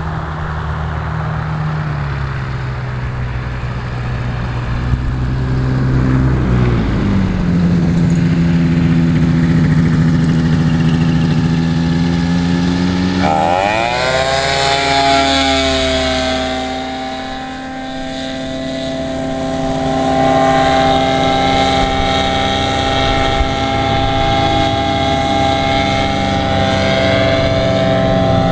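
Propeller aircraft engine running steadily. Its pitch steps up about six seconds in and climbs sharply about halfway through as the throttle is opened, then holds. The sound fades briefly a little after that and comes back.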